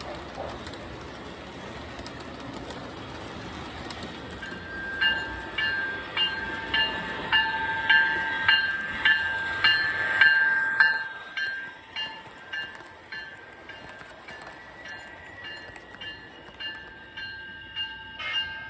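Model train running on the track, then from about five seconds in the sound system of an MTH Premier NJ Transit AEM-7 rings its locomotive bell through the newly replaced speaker. The bell rings about once every 0.6 seconds, louder for a few seconds and then softer.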